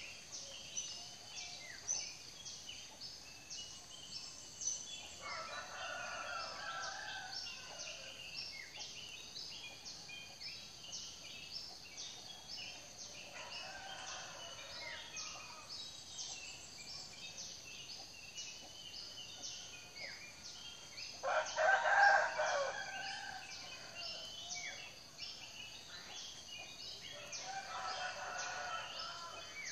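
Roosters crowing four times, each crow about two seconds long, the loudest about two-thirds of the way through, over a steady stream of high, quick bird chirping.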